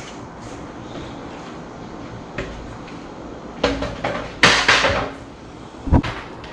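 Handling noises as vinyl wrap film is worked on a car roof: a click, then a loud rustling crackle of the plastic film in several bursts, and a short thump near the end.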